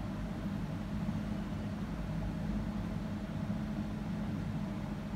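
Steady low mechanical hum of kitchen equipment running.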